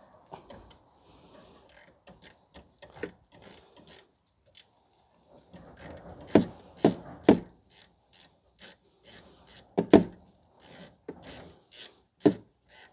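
Irregular metal clicks and clanks of hand tools working on a car's rear brake caliper, with three louder knocks about halfway through, another around ten seconds in and one more near the end.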